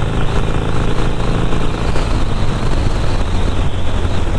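Cruiser motorcycle engine running steadily while riding at road speed, with a continuous rush of wind and road noise.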